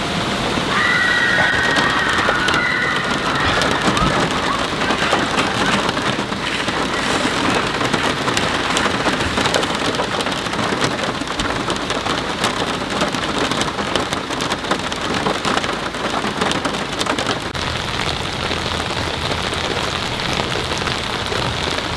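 Heavy rain falling steadily: a dense, unbroken stream of drops striking a surface.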